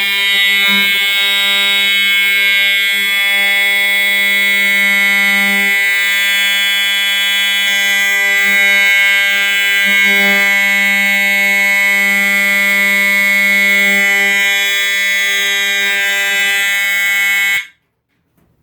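Older Edwards EST 7577AHS Integrity fire alarm horn sounding a continuous, very loud, low-pitched monotonous horn tone after a manual pull station is pulled. It stops abruptly near the end when power is cut.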